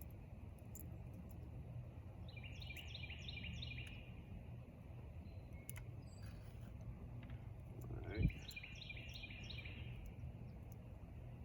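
A bird singing a quick run of about five chirps, twice, over steady outdoor background noise. A single dull thump, the loudest sound, comes about eight seconds in.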